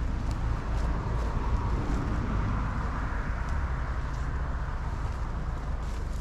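A steady low rumble and hiss, with faint footsteps of someone walking at an even pace.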